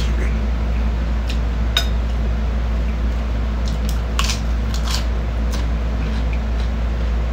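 Eating at a table: bites and chewing with a few sharp clicks and crisp crunches, the loudest cluster about four to five seconds in, over a steady low hum.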